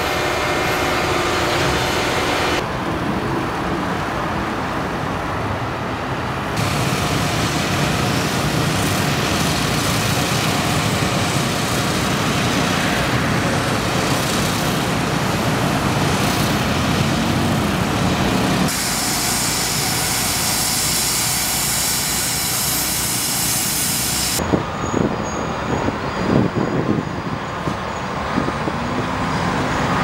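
Heavy construction machinery and truck traffic in a string of short clips that change abruptly from one to the next: a motor grader working the roadbed, a concrete pour beside a mixer truck, and dump trucks at an asphalt paver. A few sharp knocks come near the end.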